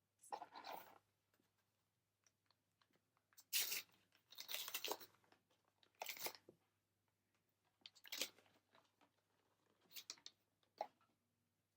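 Trading card booster pack wrapper being torn open and crinkled, in several short rustling, crackling bursts. The loudest comes about three and a half to five seconds in.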